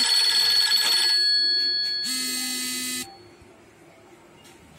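An electronic telephone ring: a steady, buzzy tone full of overtones. One ring carries into the first second, then after a gap of about a second there is another ring of about a second, and then it stops.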